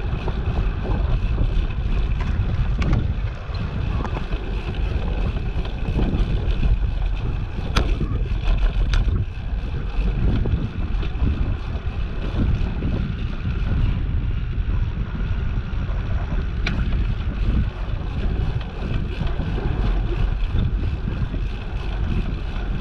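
Wind buffeting the microphone of a camera riding on a moving bicycle: a steady low rumble, with a few sharp clicks.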